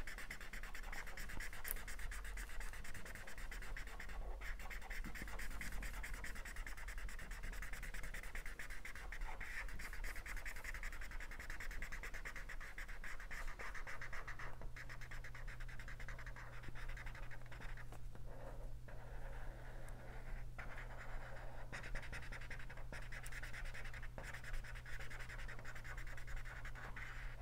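Felt-tip marker scratching back and forth on paper in quick, continuous shading strokes, colouring in a petal.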